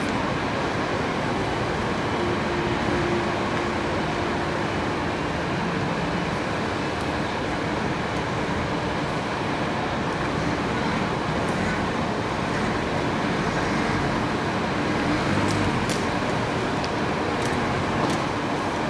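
Steady hum of city traffic, with a few faint sharp clicks near the end.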